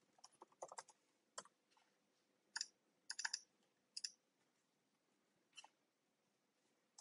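Faint computer keyboard keystrokes, clicking in a few short runs with pauses between them.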